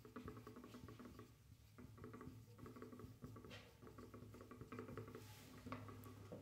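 Dry-erase marker squeaking and scratching faintly across a whiteboard in runs of quick strokes, with short pauses between them as words are written.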